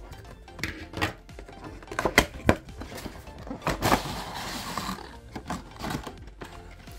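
A Sylvanian Families toy set being unboxed: a series of sharp clicks and knocks from the packaging and pieces being handled, with a stretch of rustling about four seconds in, over soft background music.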